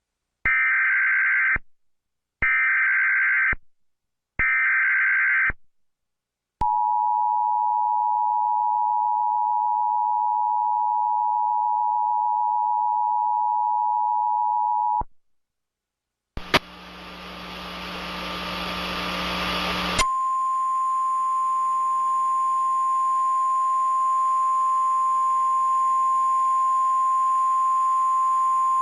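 Emergency Alert System broadcast tones: three short buzzing bursts of header data, then the two-note EAS attention signal held steadily for about eight seconds. A burst of static follows, and about two-thirds of the way in a single steady alarm tone starts over a hiss.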